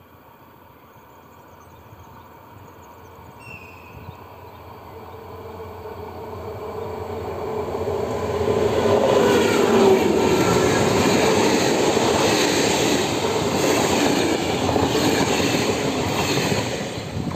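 Diesel-hauled passenger train approaching and passing close by. Its engine grows steadily louder over the first eight seconds or so, then the wheels clatter rhythmically over the rail joints as the locomotive and coaches go past.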